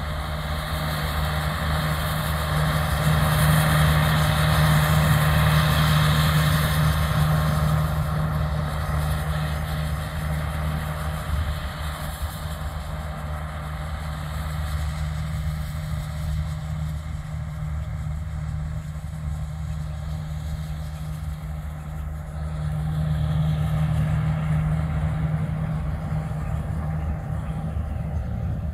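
Claas Crop Tiger 40 combine harvester running steadily while harvesting dry maize: a constant engine drone with machinery noise over it. It is louder over the first several seconds, fainter in the middle, and swells again about 23 seconds in.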